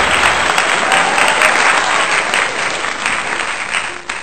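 Applause, a dense crackle of many hands clapping that dies away gradually toward the end.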